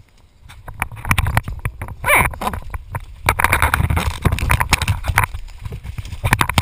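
Camera handling noise: irregular knocks and rubbing over a low rumble as the camera is grabbed and swung about.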